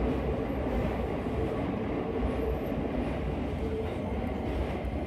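Keisei commuter train heard from inside the car: a steady running rumble with a faint steady hum.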